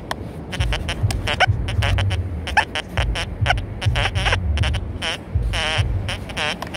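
XP Deus II metal detector giving a rapid run of short warbling beeps as its coil sweeps over wet beach sand, over a low rumble.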